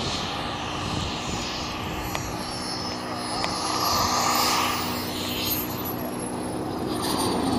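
Model jet's Black Mamba microturbine whining as the RC Mirage F1 comes in low to land. The high whine rises in pitch and grows louder as the jet passes closest, about four to five seconds in, then drops in pitch.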